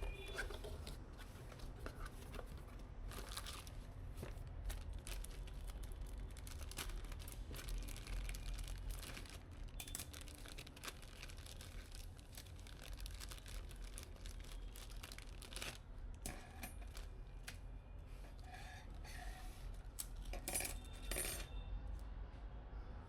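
Hands handling and fitting computer parts during a PC build: scattered clicks, taps and light rustling, with a few brighter ringing clicks near the end.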